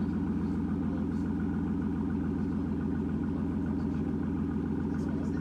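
Aston Martin Vanquish's V12 engine idling steadily, with no revs.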